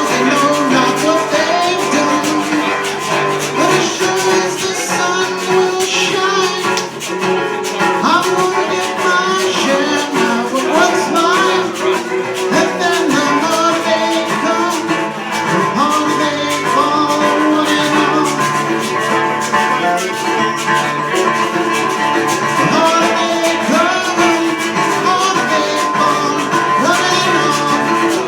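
Live acoustic music: a strummed guitar with a melody line over it.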